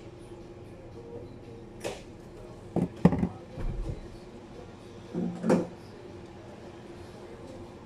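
Knocks and thumps of a kitchen cupboard door being opened and closed below the counter, several in quick succession, the loudest near the middle and again near the end, over a steady low hum.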